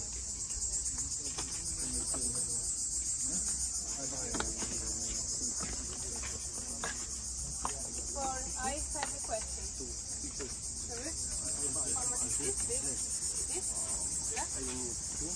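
Cicadas droning in a continuous high-pitched chorus, with faint voices of people talking underneath at times.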